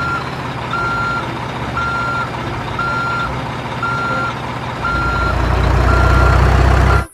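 Truck reversing alarm beeping about once a second over a running truck engine; the engine rumble swells louder near the end and the sound cuts off suddenly.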